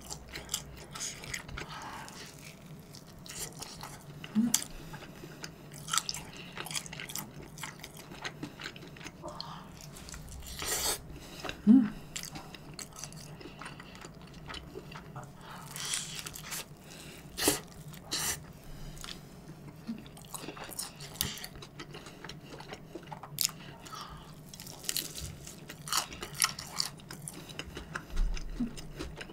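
Close-miked chewing and biting of deep-dish pizza: wet mouth sounds with scattered crisp crunches and clicks, a few bites louder than the rest. A faint low hum sits underneath.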